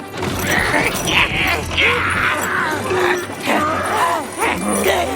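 Cartoon dogs grunting and groaning with strain as they haul a load, with some creaking and background music.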